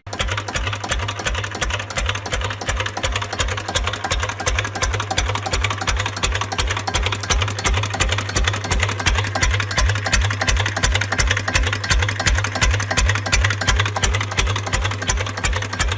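Small single-cylinder diesel engine, about 8 HP, running steadily at idle with an even, rapid beat.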